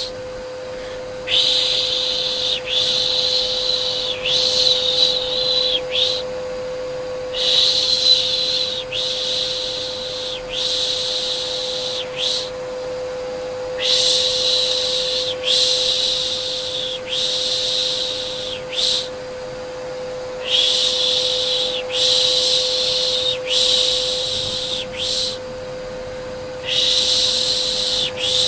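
Soothing 'pış pış' shushing for a baby: long hissing shushes, about one a second, in groups of about four with short pauses between groups. Under them runs a steady vacuum cleaner hum with a constant mid-pitched tone.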